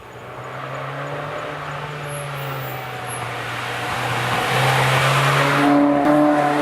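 Mazda 3 running through an aftermarket exhaust and intake, its engine note growing steadily louder over several seconds with a rising rush of noise, and a stronger, richer tone from about five and a half seconds in.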